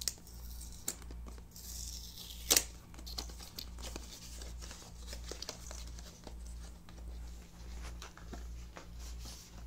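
A seal on a small cardboard box being torn off and the box opened and handled, with tearing and crinkling of paper and packaging and scattered small clicks. A sharp snap about two and a half seconds in is the loudest sound. A steady low hum runs underneath.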